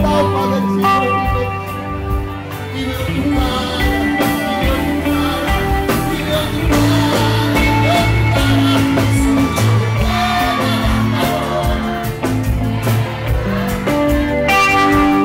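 Live Latin band music played loud, with a male singer's voice on microphone over the band.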